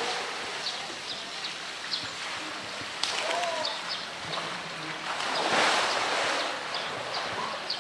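A polar bear plunges into its pool, a big water splash about five and a half seconds in, over an outdoor background with short high chirps.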